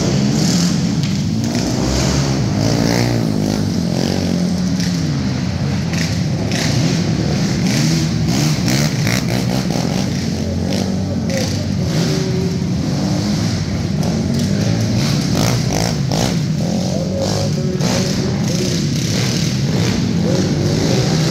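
Several 450-class sport quads racing, their single-cylinder four-stroke engines revving up and down as they run laps.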